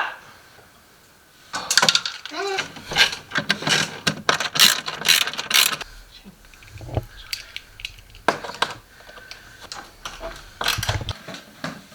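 Flat-pack furniture being assembled: runs of sharp clicks, rattles and knocks from panels and metal fittings being handled and fitted together.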